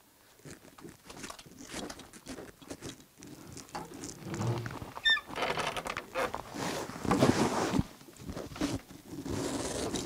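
Footsteps and scuffing with rustling of clothes and a backpack as a person walks over a littered floor and through a doorway, with a short squeak about five seconds in. Near the end a wooden door is handled.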